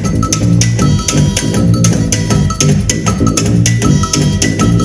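Live band music with rapid, even percussion strokes over a repeating bass line.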